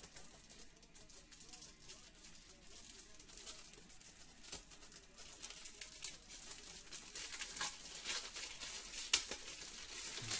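Trading cards and their wrappers being handled: faint rustling, crinkling and small clicks that get busier in the second half, with one sharper click about nine seconds in.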